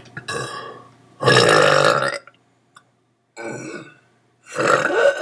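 Several belches in a row. The loudest and longest starts about a second in and lasts about a second, with shorter belches before it and near the end.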